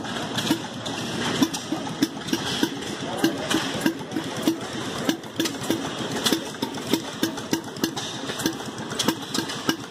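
Small scale-model stationary gas engine running, with a steady putt about twice a second and light mechanical clicking over it.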